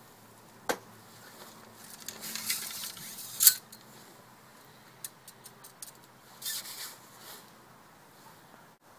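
Handling noises of fishing tackle and a padded jacket: a sharp click about a second in, rustling that ends in a loud scrape about halfway through, a few light ticks, and another short rustle.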